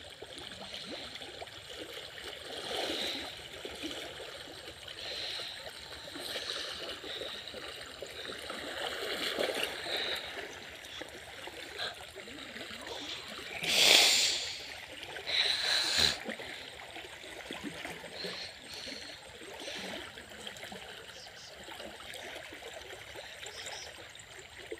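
Shallow stream running steadily over a rocky bed, with gurgling and trickling. A louder short burst of noise comes about 14 s in, and another around 15–16 s.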